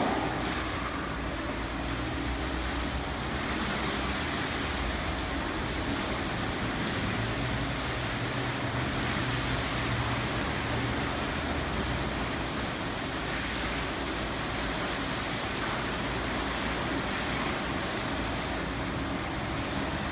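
Peco car wash tunnel brushes spinning: the wrap-around side brushes and top brush turn steadily, giving an even rush of noise over a low, steady motor hum.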